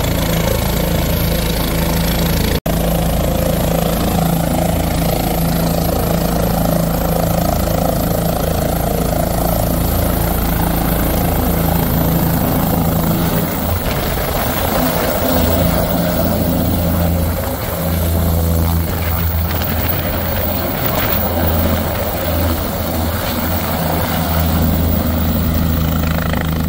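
A helicopter's rotor and turbine engine running loud and steady on the pad at close range, then lifting off about halfway through, the rotor beat shifting as it climbs away.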